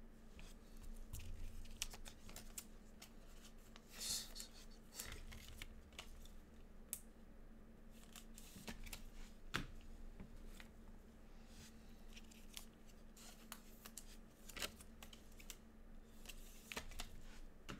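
Faint handling noise of trading cards and clear plastic card holders: scattered clicks, short scrapes and rustles as cards are slid into sleeves and top loaders, over a steady low hum.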